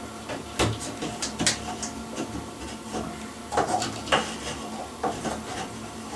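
Plastic LED ceiling-light base being handled against the ceiling while wires are fed through it: a handful of irregular clicks, knocks and scrapes.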